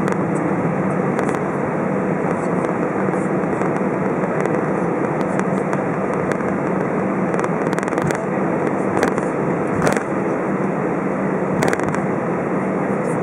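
Airbus A320 cabin noise while taxiing: a steady rush of the jet engines at low power with a constant low hum, and a few sharp clicks or rattles in the second half.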